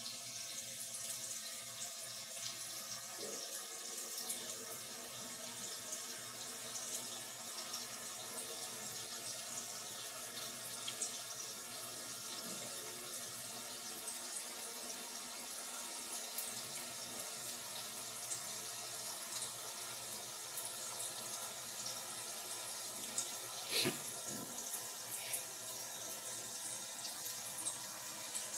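Food frying in a pan on a gas stove, a steady sizzling hiss with small crackles and pops throughout. A single knock about three-quarters of the way through.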